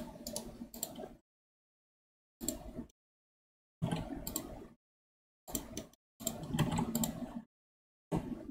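Computer keyboard keys and mouse clicks picked up by the desk microphone, coming in six short clusters of sharp clicks, each cut off abruptly into dead silence by a noise gate.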